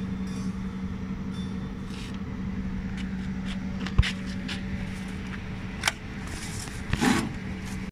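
Equipment being handled and unloaded from a car's boot: a sharp knock about four seconds in, then bumps and a scrape near the end, over a steady low hum.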